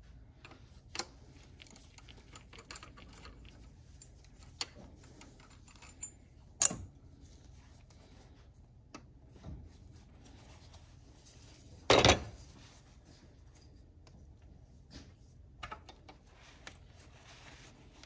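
Light clicks and metal clinks from a ratchet and hands working the Torx bolts of the engine's high-pressure fuel pump to take it off. A sharp knock comes about seven seconds in, and a louder brief metal clatter about twelve seconds in.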